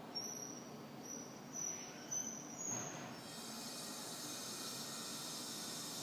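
Water at a rolling boil: faint short high chirps over a low bubbling, then a steady steam hiss sets in about three seconds in.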